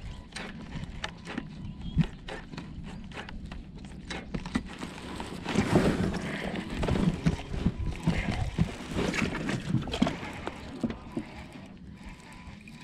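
Rapid irregular clicks and knocks of a fishing rod and casting reel being handled in a kayak. About halfway in comes a louder stretch of rustling and thumps as a sleeve brushes close to the microphone.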